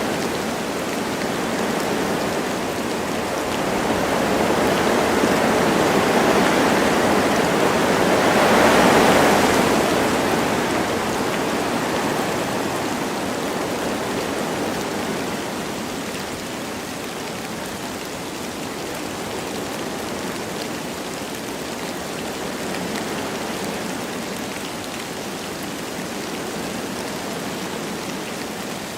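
Wind blowing through forest trees with light rain: a steady rushing that swells about eight or nine seconds in, then eases back.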